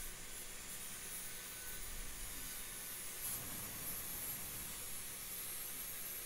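Faint steady hiss with a low hum, and no loud machine sound.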